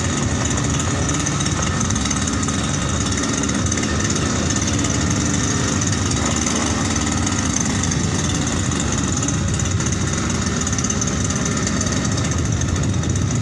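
Small 52 cc two-stroke brush-cutter engine driving a motorized bicycle, running steadily under way.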